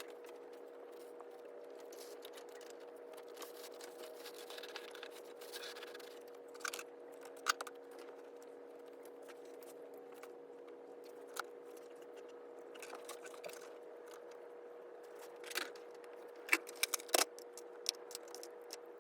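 Scattered light clicks, taps and rattles of plastic interior trim and fasteners being worked loose in a car's rear quarter, over a steady low hum. A cluster of sharper clicks comes near the end.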